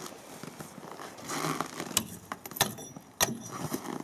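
Crunching and then about three sharp knocks, roughly half a second apart, as a hatchet is handled and tapped at a frozen pile of snow and ice, just before chopping begins.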